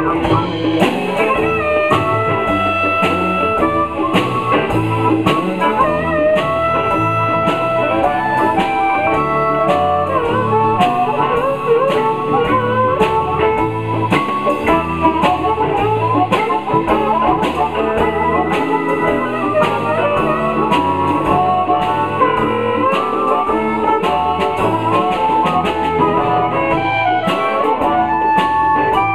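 A live blues band playing an instrumental passage: drum kit, bass and guitar keep a steady groove under a lead line of held, wavering notes.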